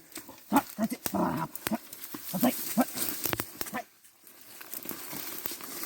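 Hunting dog giving a series of short whines and yelps, with a few clicks, over the first four seconds, then falling quiet.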